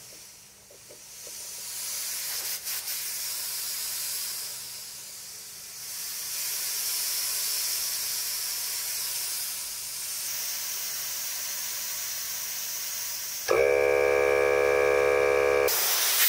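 Compressed air hissing out of a CNC mist coolant spray nozzle fed from an air compressor, swelling and dipping as the regulator and the sprayer's valves are adjusted. Near the end a loud droning tone with a low hum cuts in suddenly for about two seconds.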